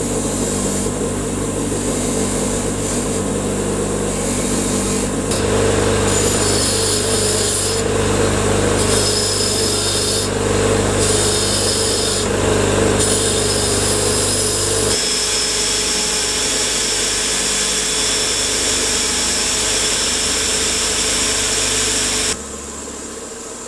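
Motor-driven wire wheel running, its wire bristles scraping rust off a cast iron stamp carousel. The scraping shifts as the piece is moved against the wheel, and the sound drops sharply about a second before the end.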